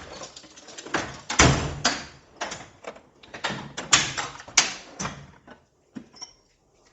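Metal hand tools clanking and knocking in a garage: a quick, irregular run of sharp clacks and clatters that stops about a second before the end.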